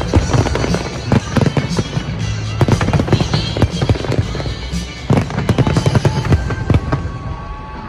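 Fireworks exploding in a dense, irregular run of bangs and crackles, with music playing underneath.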